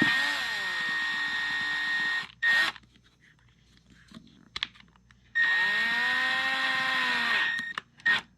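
Electric drill-driver running on the small adjustment screws of an LED retrofit can light's mounting clips. It comes in two runs of about two seconds each, with a short blip after the first run and another near the end.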